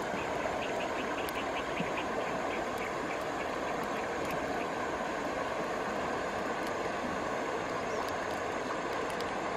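Steady rushing of a shallow stream running over stones, with faint quick ticks in the first few seconds.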